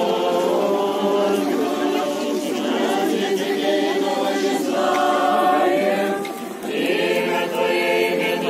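A choir singing an unaccompanied church chant in several voices, on long held notes, with a short break about six and a half seconds in.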